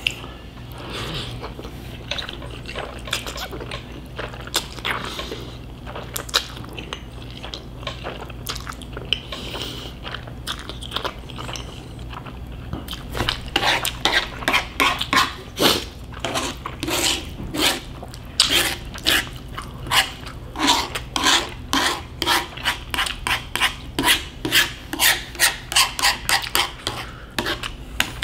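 Close-miked chewing of a mouthful of Korean bibim-men cold noodles, with wet mouth clicks. Faint and sparse for the first half, then a steady chewing rhythm from about halfway on.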